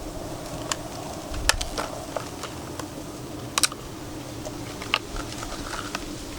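A small prize package being opened and handled by hand: a run of irregular sharp clicks and taps, a few louder than the rest, over a steady low background hum.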